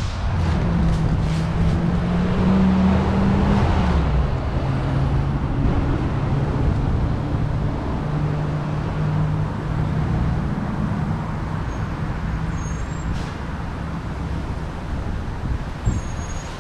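Steady low hum of a large idling vehicle, with a couple of held low tones that shift in pitch now and then over a bed of traffic-like noise.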